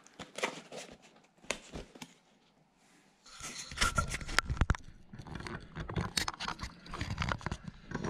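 A cardboard shipping box being put down and handled on a cutting mat. A few light knocks come first. From about three seconds in there is a busy run of scrapes, rustles and taps as the box is pushed into place.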